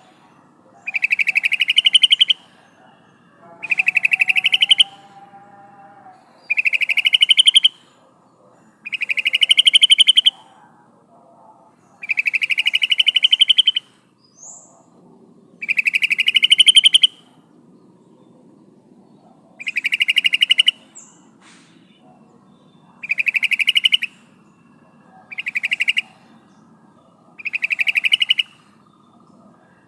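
Yellow-vented bulbul (trucukan) giving a rapid, bubbling rattle call over and over, each phrase about a second long and rising a little, about every two to three seconds. The call is presented as a female calling to males. Fainter bird calls sound in the background.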